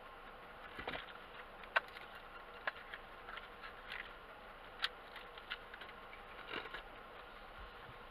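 Car engine idling while stationary, heard from inside the cabin, with a few sharp, irregular ticks and taps over it.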